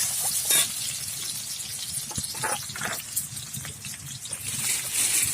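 Potato pieces frying in hot oil in a kadai: a steady hissing sizzle, with a few sharp clicks about half a second in and again between two and three seconds in.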